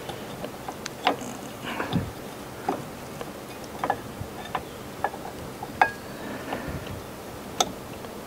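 Irregular light metallic clicks and taps as steel brake pads and their wire spring clips are worked into a rear disc brake caliper by hand.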